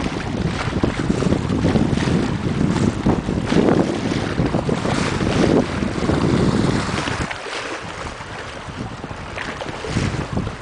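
Wind buffeting the microphone over choppy lake water splashing against a stone seawall and rocks. The gusts ease for a moment about seven seconds in.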